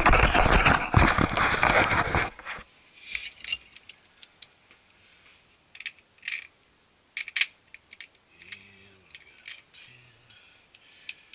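Loud rustling from the camera being handled and brushed by clothing for about the first two seconds. After that come scattered light metallic clicks and clinks from hand tools on the door panel's bolts.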